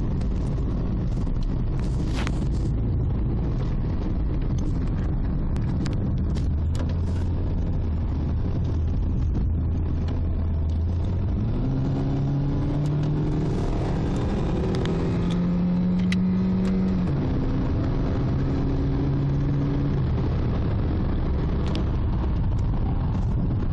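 Car engine running with road noise while driving at speed. About halfway through, the engine note rises and then shifts pitch several times as the car speeds up.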